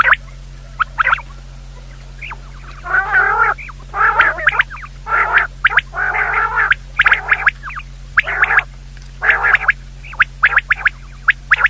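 Quail calls repeating in quick bursts: some short and sharp, others longer and harsh, over a steady low hum.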